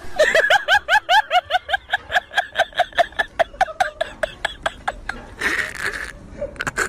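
High-pitched giggling laughter: a long run of quick, rhythmic 'ha' pulses, about five a second, that slows and fades after about four seconds. A short breathy burst follows near the end.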